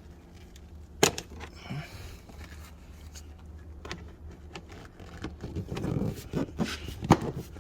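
Scattered handling clicks and knocks: a sharp click about a second in, then a run of light knocks and clicks near the end, as the plastic interior trim and its screws are refitted.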